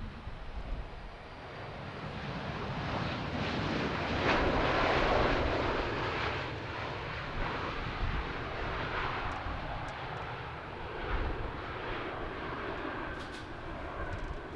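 Jet airliner's engines passing by, a rushing noise that swells to its loudest about four to five seconds in and then slowly fades, over gusty wind rumble on the microphone.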